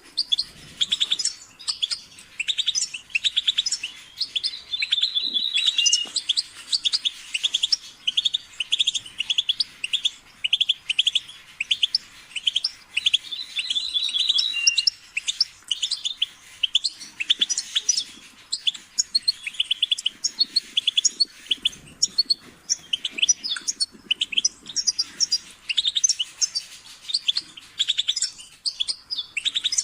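European goldfinch singing: a continuous run of rapid, liquid twittering and trills, with a few brief clear whistled notes.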